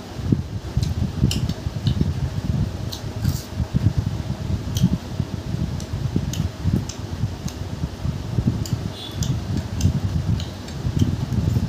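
Eating rice and curry by hand: chewing and fingers mixing rice on a plate, heard as scattered small sharp clicks. Under them is a steady low rumble.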